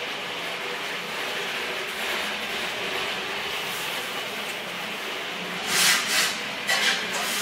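Steady mechanical background din with a faint hum. About six seconds in, a few short, loud metal noises come as a wrench is put to a hydraulic line fitting on an excavator final drive motor.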